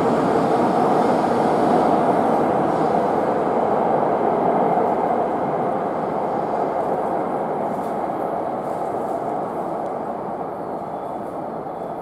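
Hayabusa shinkansen train pulling out of the station: a steady rushing rumble that slowly fades as it leaves.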